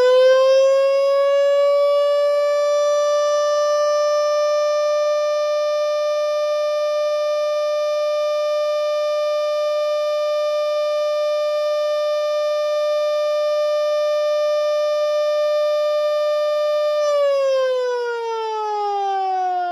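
Sireno Model D omnidirectional single-tone siren running on 12 volts DC, though built for 24 volts. It finishes winding up in the first couple of seconds, holds one steady tone, then about 17 seconds in starts winding down with falling pitch.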